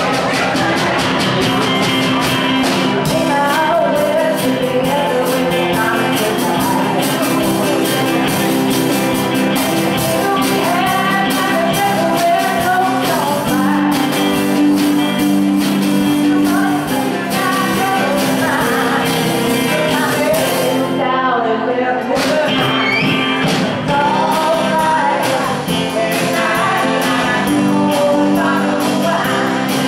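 Live band playing a country-rock song with singing over drums, electric and acoustic guitars and keyboard.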